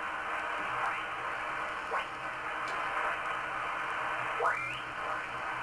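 Shortwave receiver audio from a Yaesu FT-857 transceiver being tuned up the 20-meter amateur band: a steady hiss of band noise, with signals sweeping up in pitch as the dial passes them, most clearly twice, about two seconds in and again near four and a half seconds.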